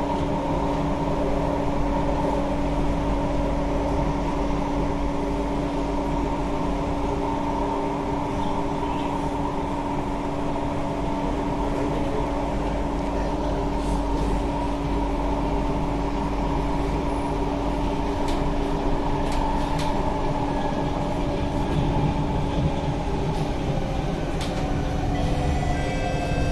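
Cabin sound of a C151B metro train running on elevated track: a steady rolling hum with a constant motor whine and a few faint clicks. Near the end a motor tone falls in pitch, typical of the train beginning to slow.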